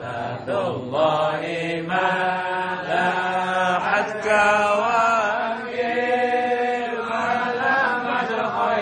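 A group of men chanting Arabic Islamic devotional verses in praise of the Prophet, a continuous melodic recitation with long held and gliding notes, without instruments.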